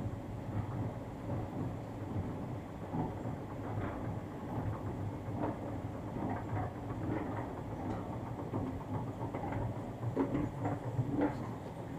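Station escalator running while being ridden upward: a steady low mechanical hum with light, irregular clicking and rattling from the moving steps. A few louder clicks come about ten seconds in, as the top landing is reached.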